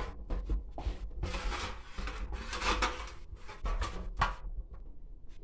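A metal baking tray being greased: irregular rubbing, swishing strokes across the metal, with a few sharp knocks and clicks as the tray is handled.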